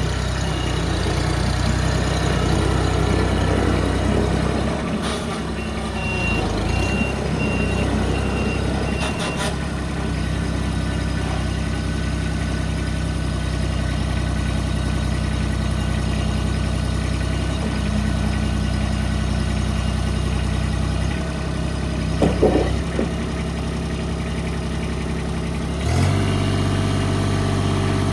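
Kubota B26 tractor backhoe loader's three-cylinder diesel engine running steadily, with a rapid electronic beeping for about four seconds starting some six seconds in. Near the end the engine speed steps up.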